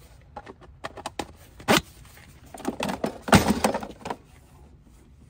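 Metal tools and plastic cases clinking and knocking as they are handled and set down in a steel tool drawer. A series of sharp knocks comes at uneven intervals, the loudest a little under two seconds in and a clatter about three to three and a half seconds in.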